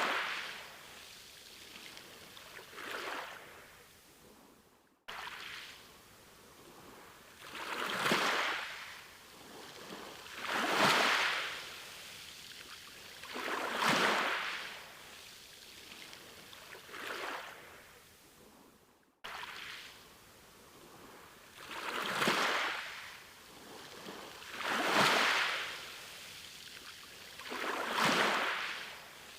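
Sea waves breaking and washing up the shore, a surge of surf noise rising and falling about every three seconds. The sound cuts out abruptly twice and picks up again, where the recording has been spliced.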